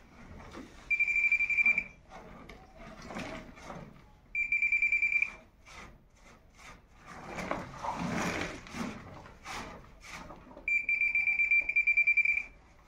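Handheld metal-detector pinpointer beeping rapidly at one fixed high pitch in three short bursts, signalling metal close to its tip as it is probed into the soil. Between the bursts, dirt and broken brick rubble are scraped and dug by hand.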